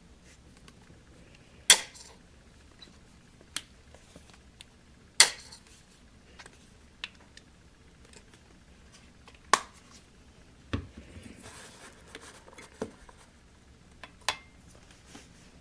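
Sharp, irregular clinks and taps of kitchen utensils against containers while slime ingredients are handled and mixed, with a brief scraping stretch about eleven seconds in.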